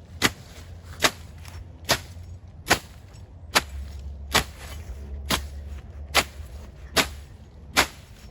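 Machete slashing through grass and bush in steady, rhythmic swings, about ten sharp swishing cuts a little under a second apart, as ground is cleared by hand.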